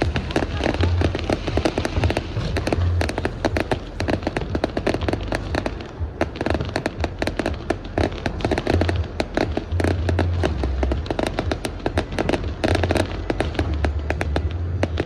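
Fireworks display: a dense, continuous run of crackling bursts and pops with deeper booms underneath, with music playing along.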